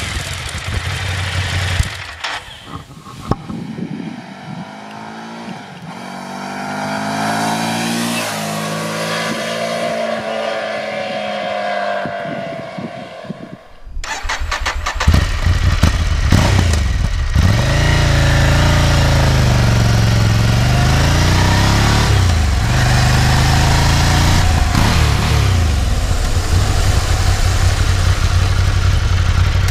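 Ducati Scrambler 800's air-cooled L-twin engine through its standard muffler, growing louder as the bike approaches, its pitch rising and bending with the throttle. About halfway through it suddenly becomes much louder and runs on with the revs dipping and climbing again.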